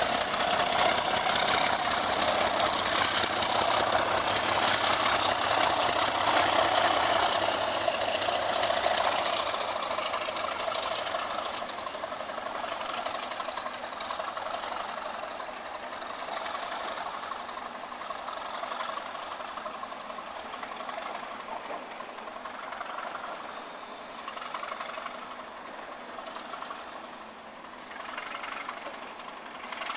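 Class 37 diesel locomotive's English Electric V12 engine working hard as it passes close at the rear of a train of coaches, with a steady high whistle over the engine note. After about nine seconds the engine sound fades gradually as the train pulls away.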